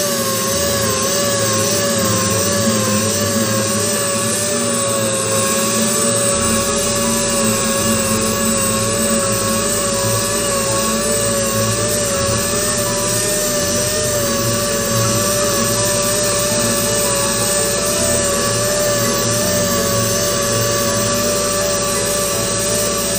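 Air-powered orbital sander running against a tanker's painted steel body: a steady high whine that wavers slightly in pitch as it is pressed and moved over the surface, with a gritty rasp of sanding under it.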